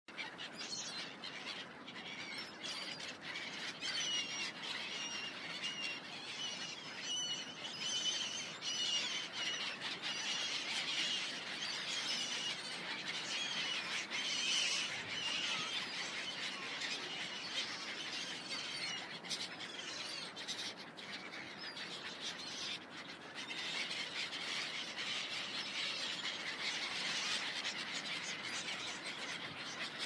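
Riverside ambience: birds chirping and calling continually over the steady rush of river water.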